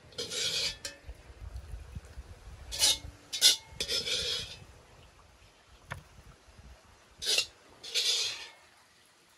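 Several short scraping, rubbing sounds and a couple of sharp clinks from kitchen utensils and dishes being handled.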